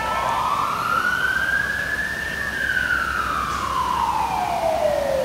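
Fire engine siren on wail: one slow sweep that rises over about two seconds, then falls back down for the next three.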